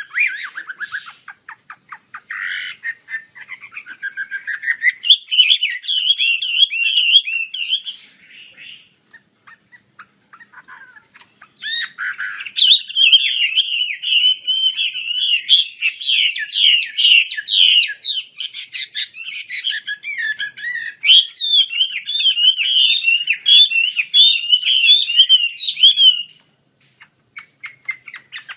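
Chinese hwamei singing a loud, fast, varied warbling song in full voice. It sings for several seconds, pauses for a few seconds with only a few faint notes, then pours out a long unbroken stretch of song that stops shortly before the end.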